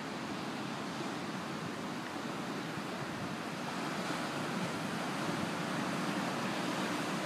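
Steady rush of surf breaking on a sandy beach, with some wind.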